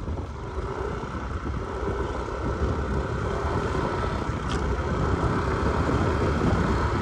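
Motor scooter engine droning steadily under way, mixed with wind and road noise, getting gradually louder.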